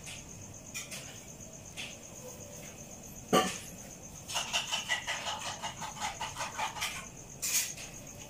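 Cat chewing and crunching chicken bones, a quick run of clicks in the middle, with crickets chirping steadily throughout. A single sharp knock comes just after three seconds in.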